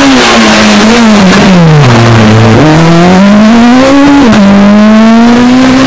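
Renault Clio rally car's engine at high revs, very loud. The revs drop steeply about two seconds in, then climb hard, fall sharply at a gearshift about four seconds in, and climb again.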